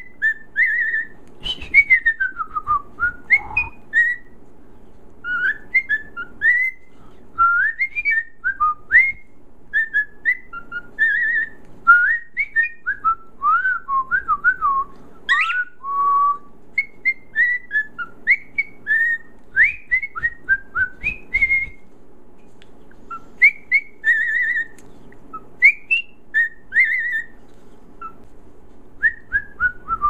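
Cockatiel whistling a tune in quick phrases of short notes, many of them sliding up or down in pitch.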